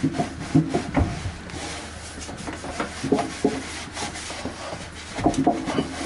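A Norwex EnviroCloth scrubbing and rubbing against the inside wall of a microwave, in uneven strokes, with firmer strokes about three seconds in and near the end.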